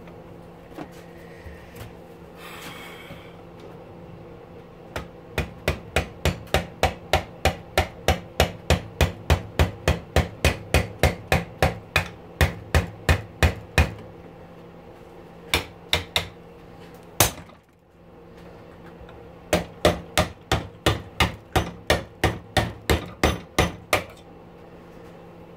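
Hammer blows on a screwdriver set against a small electric motor held in a bench vise, as the motor is knocked apart. Sharp, even blows about three a second in a long run, a few single blows, then a second shorter run near the end.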